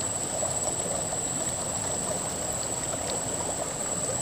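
Shallow river running fast over gravel and stones: a steady rush of flowing water, with a constant thin high-pitched whine above it.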